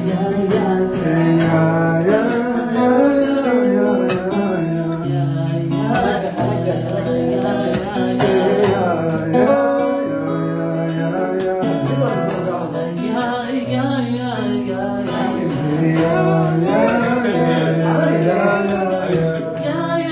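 Acoustic guitar strummed and picked, with a man singing over it in a loose, free-style way.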